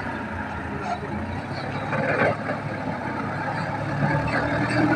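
Engine of a teak log-hauling machine running steadily, a low even hum that grows slightly louder near the end.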